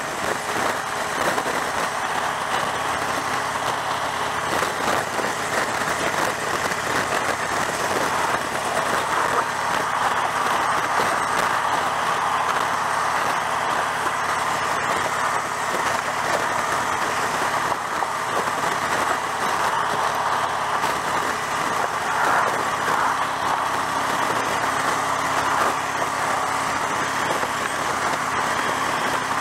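Steady wind rush over the rider's camera microphone on a cruiser motorcycle at road speed, with the motorcycle engine running steadily underneath.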